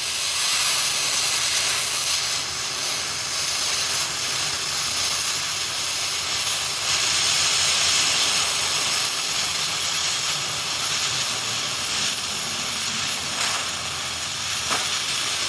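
Multiplaz 3500 steam-plasma torch hissing steadily as it welds through rusty steel plate without filler rod.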